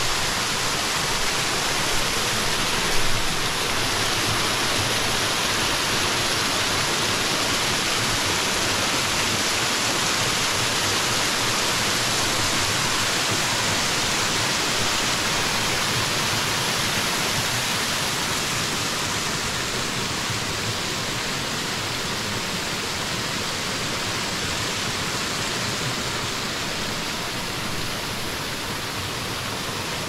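Fast water rushing over rocks, a loud, steady rush that eases slightly in the second half. A brief knock sounds about three seconds in.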